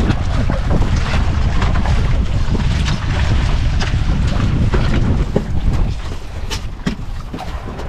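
Wind buffeting the microphone over the rush of water along the hull of an outrigger fishing boat under way, a steady low rumble; a couple of short knocks near the end.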